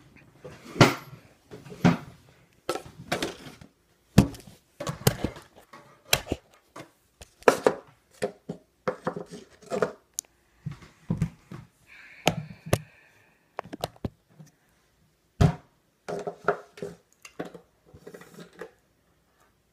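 Irregular knocks, thumps and rustling close to the microphone: a phone being handled and rubbed against clothing. The sounds stop about a second before the end.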